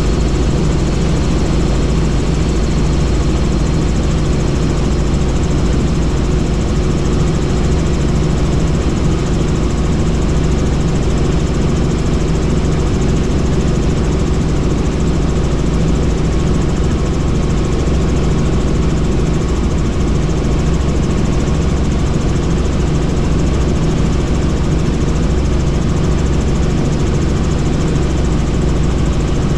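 Helicopter in flight: a steady, loud drone of engine and rotor, unchanging throughout.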